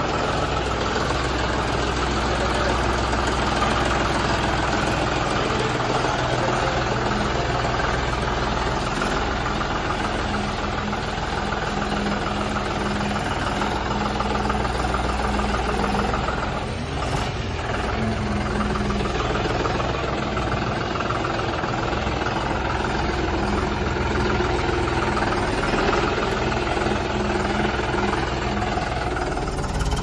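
John Deere 5210 tractor's three-cylinder diesel engine running steadily as the tractor is driven slowly, with a brief easing of the throttle about halfway through.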